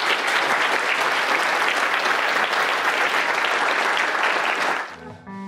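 Audience applauding steadily, then cutting off about five seconds in. Outro music with guitar starts just before the end.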